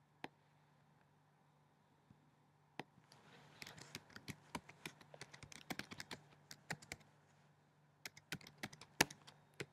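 Typing on a computer keyboard: a few single keystrokes, then quick runs of key clicks starting about three seconds in and again near the end, over a faint steady low hum.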